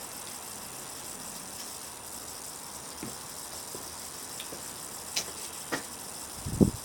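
Steady background hiss with a few scattered clicks, then a cluster of louder low knocks near the end.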